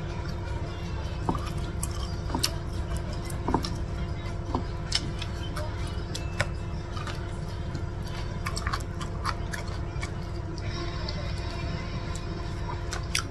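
Hand-eating sounds: fingers picking through rice and chicken on a plate, with many small sharp clicks and taps scattered throughout, over a steady low hum.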